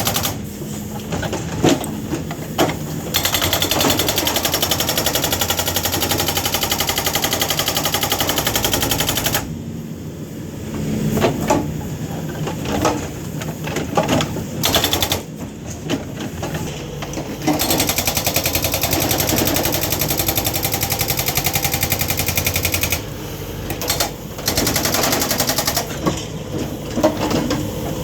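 Hydraulic breaker hammer on an MST backhoe loader pounding in long runs of very rapid blows, broken by pauses of several seconds with scattered single knocks, then starting up again.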